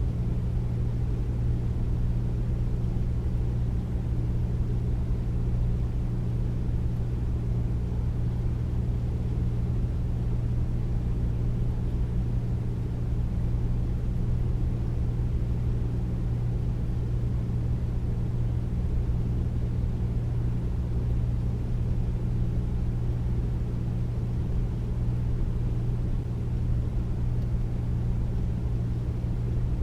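Air conditioner running steadily: a constant deep hum with a low droning tone under an even rush of air, with no change in pitch or level.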